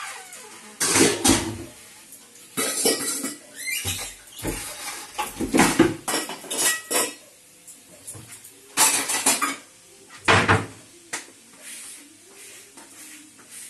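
Steel pots, dishes and utensils clattering and clinking as they are handled and set down on a kitchen counter, in short irregular clatters every second or two.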